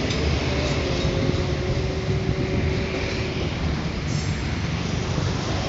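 Indonesian passenger train coaches rolling past on the track: a steady rumble of wheels on rails. A faint squeal from the wheels fades out about three and a half seconds in.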